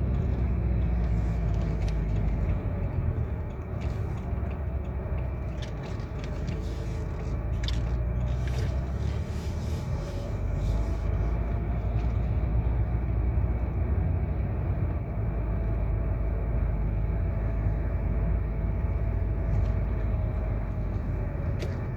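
Steady low road rumble of a moving vehicle, engine and tyre noise with a faint steady hum above it.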